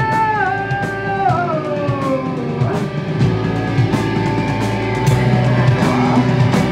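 Live rock band playing: electric guitar, bass and drum kit. A held high note slides down in pitch over the first couple of seconds while the drums keep going.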